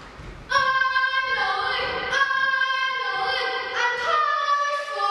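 Children singing a melody in held notes, the first starting about half a second in after a short pause.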